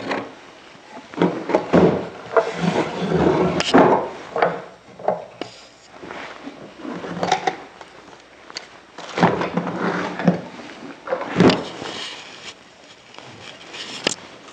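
Wooden chair frame and loose wood pieces being handled on a worktable: irregular knocks, clunks and scraping as the parts are set down and fitted together, with the loudest knocks about four seconds in and again near the middle.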